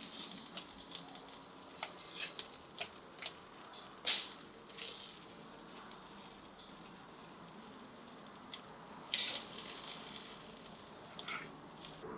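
Chicken shashlik skewers sizzling over hot charcoal, a steady hiss with scattered crackles and two louder pops, about four and nine seconds in.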